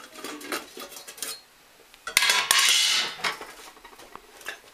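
Metal cookware clinking and clattering as a pan and its lid are handled on the hob, with one louder metal-on-metal scrape about two seconds in.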